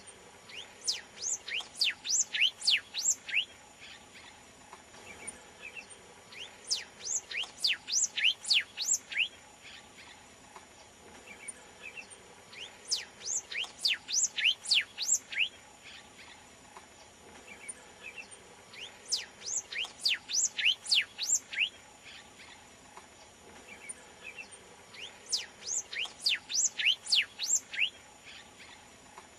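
Yellow cardinal (Gubernatrix cristata) singing: five song phrases about six seconds apart, each roughly three seconds of quick, high, sweeping notes, over a faint steady hiss.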